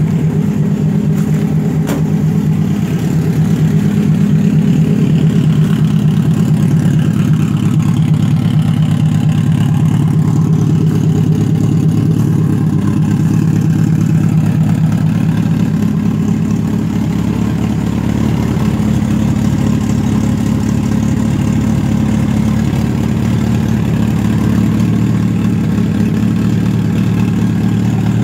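Volvo 16-valve turbocharged four-cylinder redblock engine on E85 fast-idling steadily just after a cold start in below-freezing weather. It runs a little louder from about three seconds in and eases back slightly partway through as it warms.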